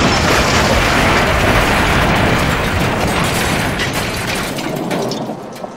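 Train crash sound effect: a diesel engine and a goods train colliding and derailing, heavy crashing and clattering of metal over a low rumble, fading away in the last second or so.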